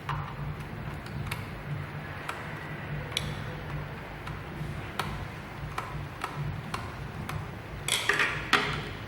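Scattered light clicks and taps at irregular intervals, with a louder clatter of clicks near the end, over a steady low hum.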